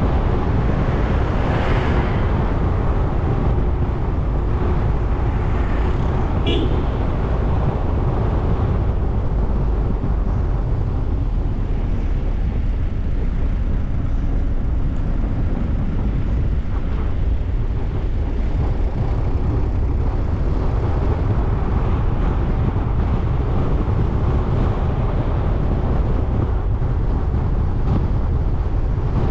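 Steady road noise from a car on the move: engine and tyre rumble with a low, even roar. A vehicle horn gives a short toot about six and a half seconds in.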